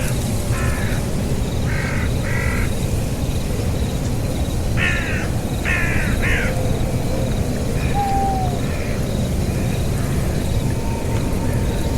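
Harsh, raspy animal calls, each under half a second, coming in groups of two or three several times and fainter near the end, over a steady low rumble.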